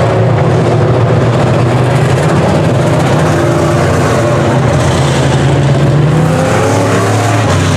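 Several semi-late model dirt race cars' engines running together on the track, a loud steady drone with the pitch wavering as individual cars rev and pass.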